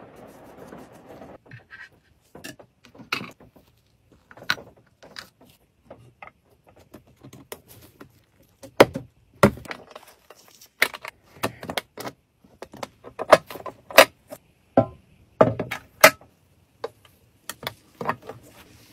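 About a second and a half of soft rubbing, then a string of sharp metallic clicks and clinks as gloved hands handle a small copper jewelry box with metal handles and clasp. The clicks come thicker and louder past the middle.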